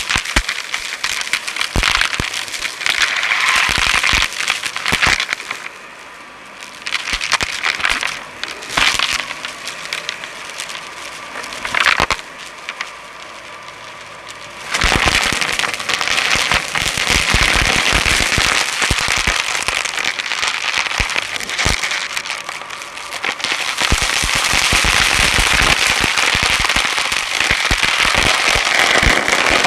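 Dyson Light Ball upright vacuum sucking up crunchy debris: dense crackling and rattling clicks over the steady hiss of the suction. It goes quieter for a couple of seconds twice near the middle, then picks up again.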